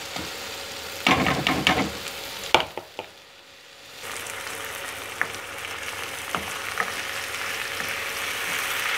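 Minced meat frying in hot oil with onions in a frying pan, sizzling as a spatula stirs and scrapes it. A brief loud clatter comes about a second in. After a short dip the sizzle grows steadily louder, with occasional light taps of the spatula on the pan.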